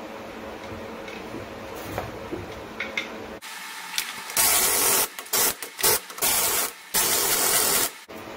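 Impact wrench running the lug nuts onto a front wheel, in a string of loud short bursts starting about three and a half seconds in, the longest about a second. Before that, only a faint steady hum.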